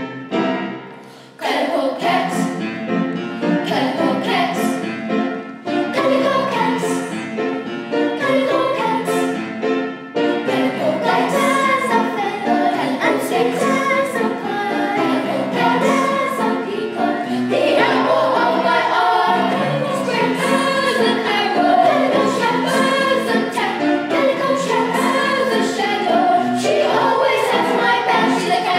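Children's choir of young girls singing a song together.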